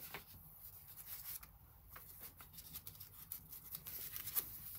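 Quiet rustling and sliding of paper and kraft card as handmade journal pages and a paper pocket are handled, with scattered light taps.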